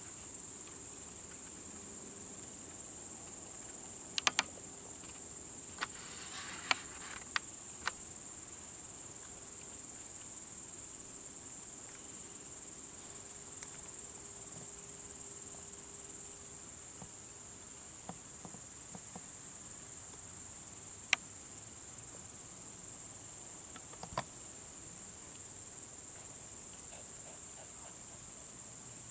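Steady high-pitched chorus of night-singing insects, crickets or bush crickets, with a few sharp clicks scattered through.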